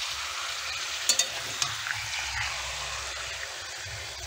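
Raw chicken pieces sizzling in hot oil on fried onions in a pan, stirred with a metal spatula. A few sharp clinks of the spatula against the pan come between one and two seconds in.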